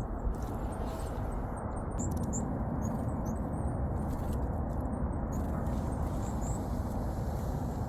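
Scattered, very short, high-pitched chirps of small songbirds over a steady low rumble of wind on the microphone, with a few faint clicks.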